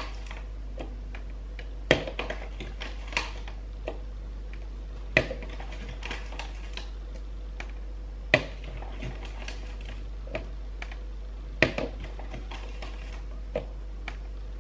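Plastic formula scoop tapping and scraping against the formula tub and bottle as level scoops of baby formula powder are measured out: a sharp click about every three seconds, with softer small clicks between.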